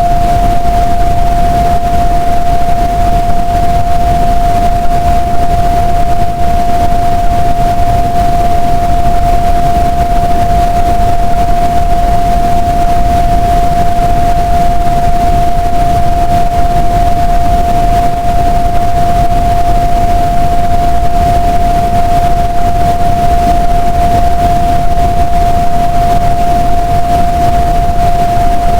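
PDQ car wash dryer blowers running steadily: a loud, even rush of air with a low rumble and a steady whine on top.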